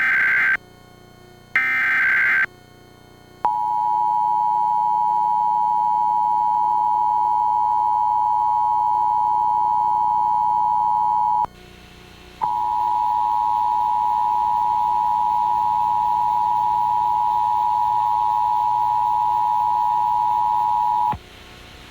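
Emergency Alert System test signal: two short bursts of screeching digital SAME header data, then the two-tone attention signal (853 and 960 Hz together) sounding steadily for about eight seconds. The attention signal breaks off for about a second, then sounds again for about nine seconds before cutting off sharply.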